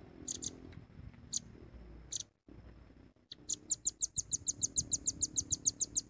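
Velvet-fronted nuthatch calls: a few sharp, high single chips, then a fast run of about seven or eight chips a second through the last two and a half seconds.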